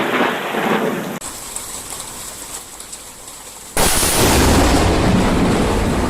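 Steady rain noise, then quieter rain, and near the end a sudden, very loud thunderclap that breaks out and keeps rumbling low and heavy.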